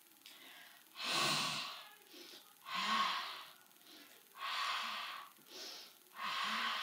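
A woman's deep, audible Pilates breathing: four strong breaths in and out, each about a second long and spaced under two seconds apart, with softer breaths between them.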